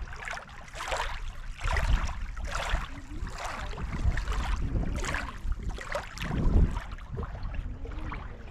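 Small lake waves lapping and splashing against the shore in repeated surges about once a second, with a deeper low rumble swelling twice.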